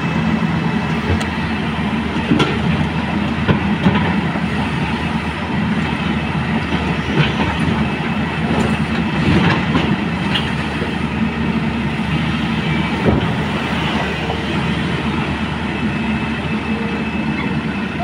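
Hyundai crawler excavator's diesel engine running steadily under load while it works, with scattered knocks and scrapes of broken concrete slabs being moved by the bucket.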